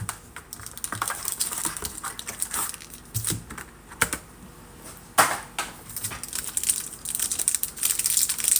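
Trading cards and a pack being handled on a table: a quick run of light clicks and taps, with one sharper tap about five seconds in.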